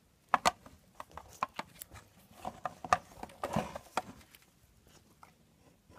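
An irregular run of light clicks and knocks from handling, as of small parts and tools being moved about on a workbench, dying away after about four and a half seconds.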